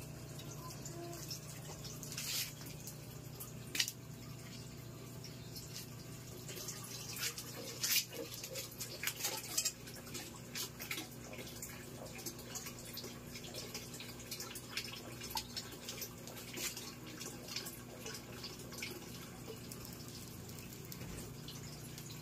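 Scattered clicks and light plastic-and-metal clatter of a caulking gun being handled and loaded with a silicone cartridge, over a steady low hum. The sharpest clicks come about four and eight seconds in.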